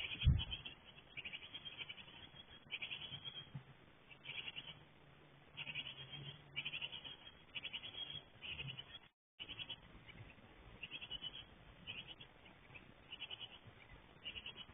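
Japanese tit nestlings near fledging age begging in a wooden nest box: bursts of fast, high chattering calls, repeated every second or so. A thump sounds just after the start as a parent bird leaves the box.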